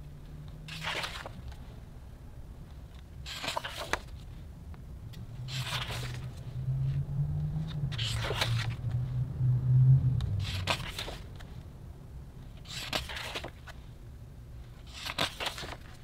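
Pages of a hardcover photobook being turned by hand: seven short paper swishes, about one every two and a half seconds. A low hum runs underneath from about five seconds in to about eleven seconds.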